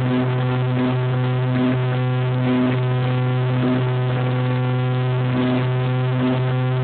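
Piper Chieftain's twin piston engines and propellers droning steadily in the climb after take-off, heard from inside the cabin, with a slow rhythmic throb in the drone.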